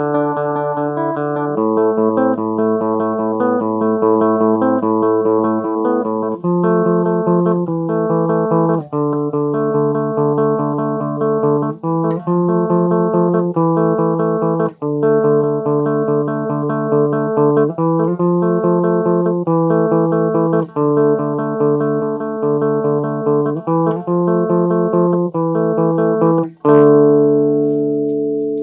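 Electric guitar played with a clean, undistorted tone through a Phil Pro amplifier: a repeating progression of chords changing about every second. Near the end a strummed chord is left to ring and fade away.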